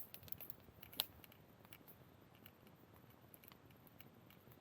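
Faint, sparse crackling of a wood campfire, with one sharper snap about a second in.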